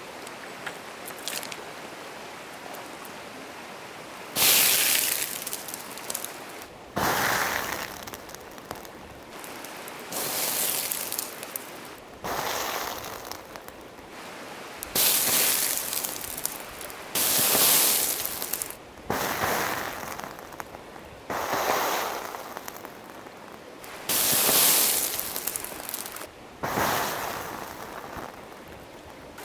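Burning candle wax in a frying pan flaring up again and again as squirts of water hit it: about ten sudden bursts of hissing, crackling spatter, each a second or two long and a couple of seconds apart. The water sinks under the hot wax, flashes to steam and throws burning wax up into the air.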